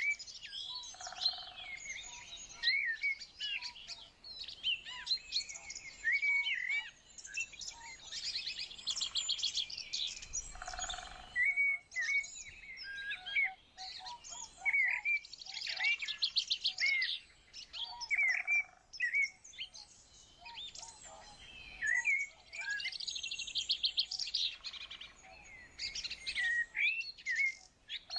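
Several songbirds chirping and singing together, mixing short whistled notes with fast, rattling trills that come every several seconds.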